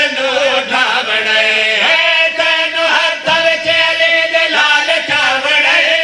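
Men's voices chanting a Punjabi devotional qasida in praise of Imam Ali into microphones, in long held notes that waver and glide with no break.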